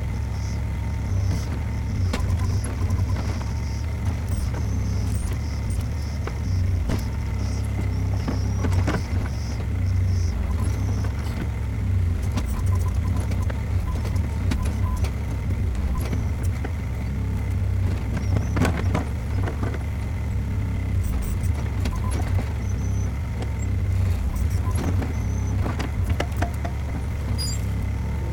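Skid steer engine running steadily while the machine works at a tree stump with its grapple, with scattered knocks and clanks throughout.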